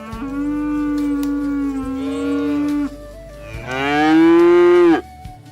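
Cattle mooing: two long moos, the second one a little after the first ends and louder.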